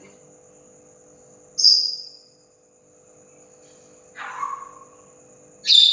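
African grey parrot giving three short, sharp calls: a high one about a second and a half in, a lower falling one past the middle, and another high one at the end. A steady high-pitched tone runs underneath.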